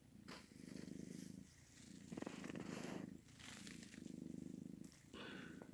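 Domestic cat purring softly, in stretches of about a second with short breaks between breaths.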